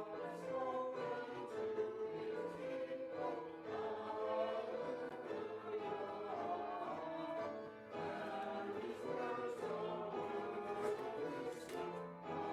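Choir and congregation singing a hymn with instrumental accompaniment, in sustained phrases with a brief breath pause about eight seconds in.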